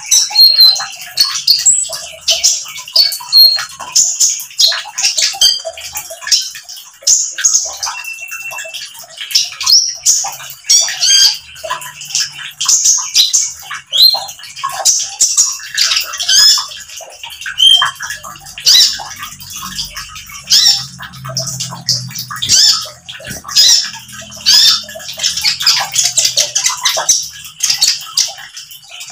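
Male van Hasselt's sunbird (kolibri ninja, 'konin') singing its fast 'nembak' song: a loud, unbroken string of short, sharp, high chirps and trills.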